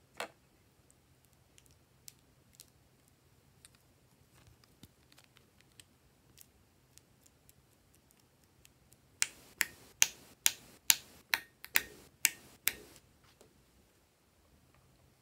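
A colour stick dabbed again and again onto glossy slime, making a run of about ten sharp, wet clicks, roughly three a second. There is a single click near the start and faint ticks before the run.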